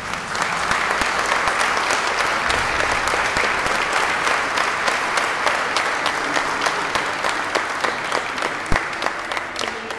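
Audience applauding: steady clapping that swells right at the start, holds for the whole stretch and begins to die away near the end.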